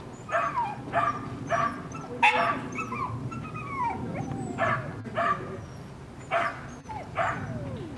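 Dog barking repeatedly: about ten short barks, unevenly spaced, some sliding down in pitch like a yelp.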